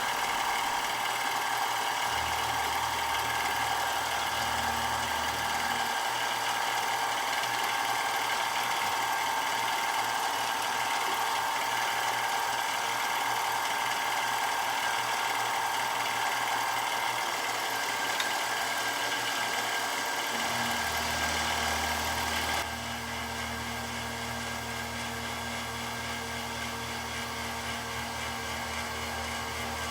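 A machine tool runs steadily, truing up the edges of a bar-stock scale mount, with a constant whine. A lower hum comes and goes, and the sound drops a little in level about three-quarters of the way through.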